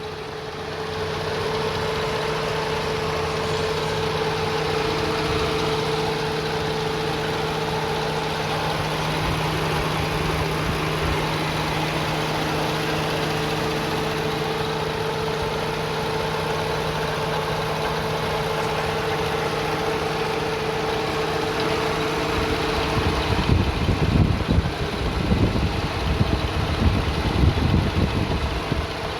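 Car engine idling steadily with a steady whine over its running sound. From about 23 seconds in, irregular low thumps come and go over it.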